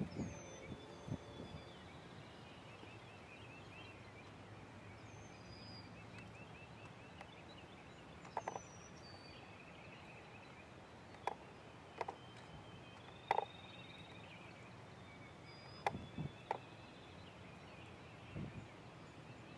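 Strutting wild turkey gobbler making about ten short, sharp spits at irregular spacing, the sounds of its strut display. Faint songbird chirps and a trill sound in the background.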